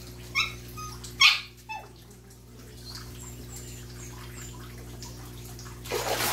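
A dog barks twice near the start, the second bark louder, over a steady low hum. Near the end, water splashes as a hooked tilapia thrashes at the pond surface on the fishing line.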